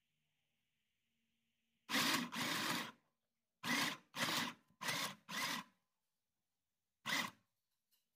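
Electric mini sewing machine running in short bursts: one run of about a second, four quick bursts, then one more near the end. It is stitching in place with the presser foot raised, so the stitches pile up on one spot to lock the thread at the end of the seam.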